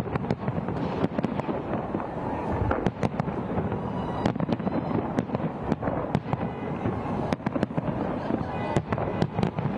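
Fireworks going off in a steady irregular run of sharp bangs and crackles, over the dense hubbub of a large crowd's voices.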